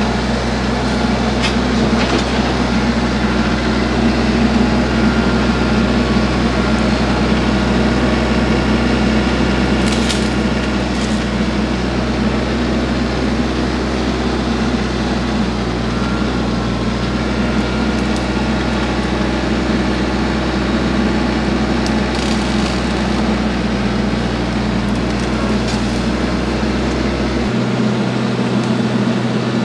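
A TYM tractor's diesel engine runs steadily while a tractor-mounted tree shear cuts through brush, with a few sharp cracks and snaps of wood and branches scattered through it. About two seconds before the end, the deepest part of the engine hum drops away.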